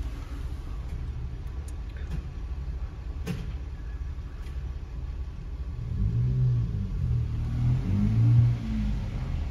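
Car engine heard from inside the cabin, a steady low rumble at idle, then louder and rising in pitch from about six seconds in as the car is driven forward a short way. A single sharp click comes about three seconds in.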